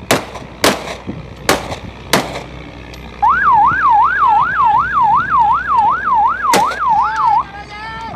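Four rifle shots, warning shots fired into the air, spaced about half a second to a second apart. About three seconds in, a patrol boat siren starts, yelping rapidly up and down about three times a second, with one more shot during it; near the end the siren switches to a choppier warbling pattern.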